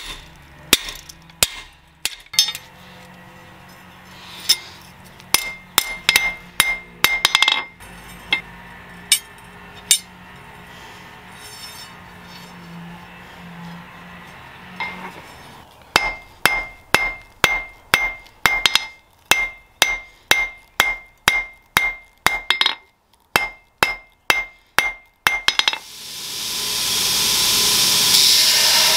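Hand hammer striking steel on an anvil, each blow ringing. The blows come in runs, the last a fast steady run of about two strikes a second. Near the end a loud steady rushing noise swells in and drowns everything else.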